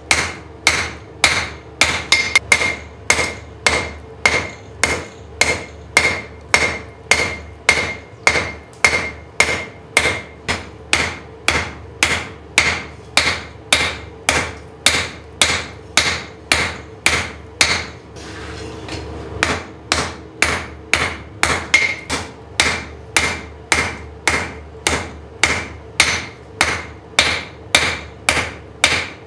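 Blacksmith's hammer striking steel on an anvil at a steady pace of about two blows a second, each blow ringing. There is a brief break in the blows about eighteen seconds in.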